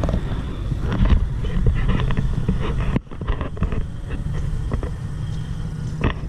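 Wind buffeting the camera's microphone, a steady low rumble, with a few light handling knocks and a short dip about halfway through.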